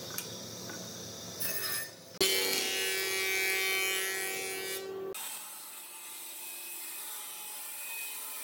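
Woodworking machines in quick succession: a table saw ripping a pine strip, then a jointer running with a steady pitched whine as a board is fed across it, then a bandsaw running. The jointer, between about two and five seconds in, is the loudest.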